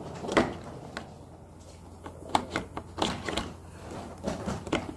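Plastic parts of a Hot Wheels Stunt and Splash Car Wash playset clicking and knocking as they are fitted together, in a few short clusters of taps.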